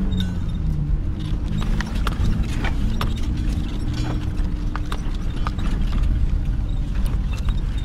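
Car engine running low under way on a rough dirt track, heard inside the cabin, with irregular knocks and rattles from the body and suspension over the bumps.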